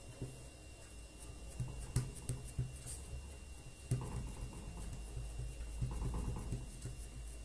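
Hands pressing and patting a piece of cookie dough flat on a wooden table: soft, irregular thumps with a few sharper taps, over a low steady hum.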